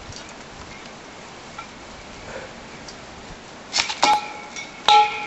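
Metal clanging near the end: a thrown object striking a metal pole a few times, each hit ringing on with a clear metallic tone, the loudest a second after the first.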